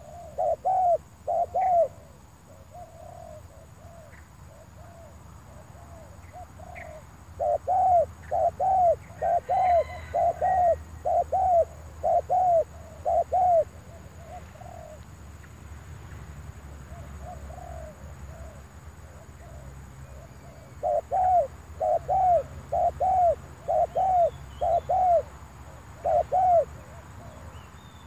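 Spotted dove (terkukur) cooing in runs of quick, evenly spaced coos, about two a second. There are three loud bouts, near the start, in the middle and near the end, with softer coos between them.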